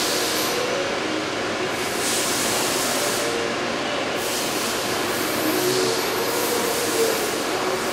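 Steady background noise with a faint wavering hum and no distinct event.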